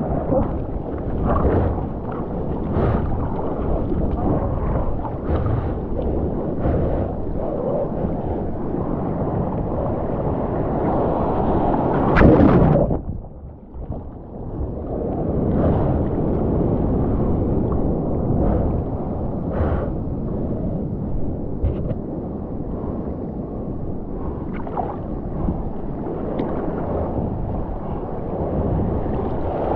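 Sea water sloshing and splashing close to the microphone as a bodyboard is paddled through broken surf, with a loud surge of water about twelve seconds in, after which it goes briefly quieter.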